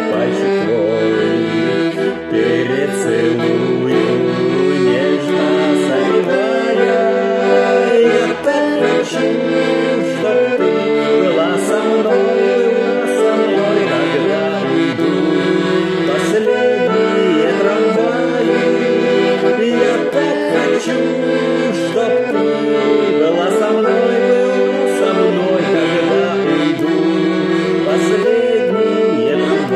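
Bayan (Russian button accordion) playing an instrumental interlude of a song: a moving melody over sustained chords, with no singing.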